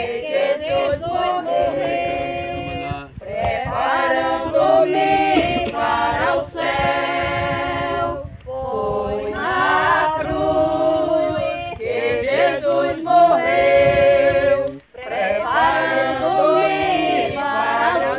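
A group of voices singing a hymn unaccompanied, in phrases with brief pauses between.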